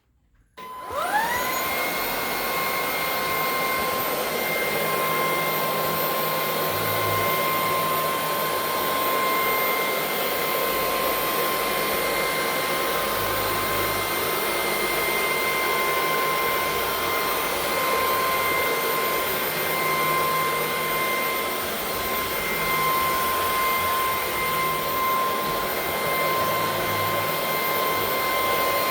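Vacuum cleaner switched on about a second in, its motor whine rising quickly to a steady high pitch, then running steadily with a rush of air as it picks up scraped paint from the floor.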